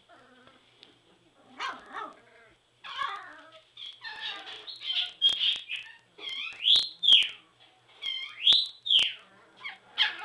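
Three-week-old Border Collie puppies whining, with scattered cries at first and then a run of high, upward-sliding cries from about four seconds in, mixed with a few sharp clicks.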